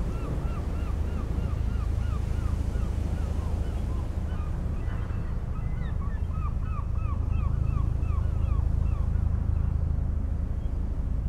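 Steady wind rumble, with a bird calling in two runs of short, repeated notes, about four a second. The first run comes at the start and the second from about six to nine seconds in.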